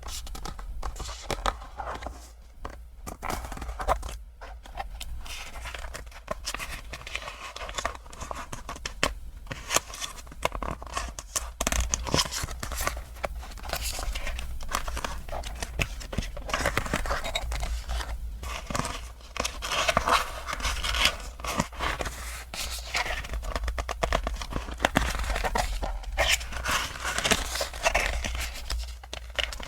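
Packaging crinkling and tearing as it is unwrapped by hand, with irregular taps and scrapes, busiest in the second half.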